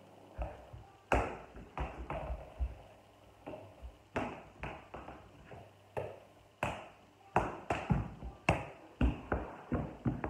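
A soccer ball juggled with bare feet: about twenty dull taps, one per touch, at an uneven pace that quickens in the second half.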